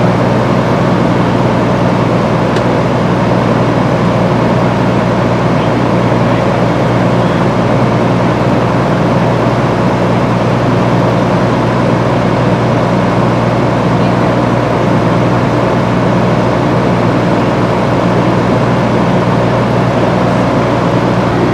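An engine running steadily at idle: a loud, even, unchanging drone.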